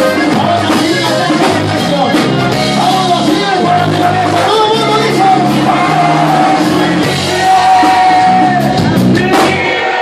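Live norteño band playing loud: button accordion, guitar, bass and drums, with a lead singer and several long held notes.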